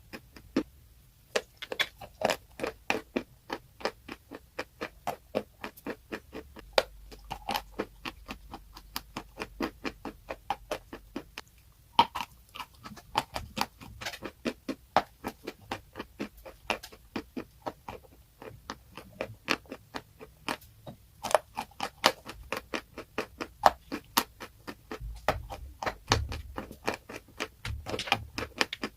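Close-miked crunching of a crisp, brittle material being bitten and chewed for ASMR: a rapid run of sharp crackles, several a second, with brief pauses about a second in and about twelve seconds in.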